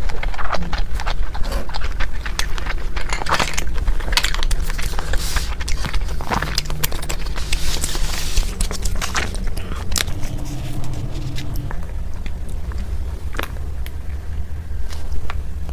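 Close-miked eating: a person biting and chewing food in big mouthfuls, with many irregular crisp clicks and wet mouth sounds, over a steady low hum.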